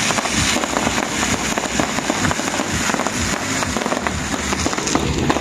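Fireworks going off in a dense, continuous run of crackling pops and bangs.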